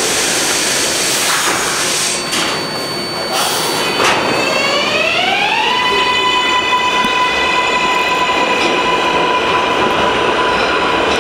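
R188 subway train pulling out of the station: a few clunks, then about four seconds in the electric propulsion whine climbs in pitch through several tones and levels off into a steady high whine over the rumble of the wheels as the cars gather speed.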